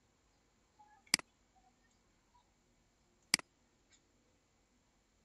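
Two sharp computer mouse clicks, about two seconds apart.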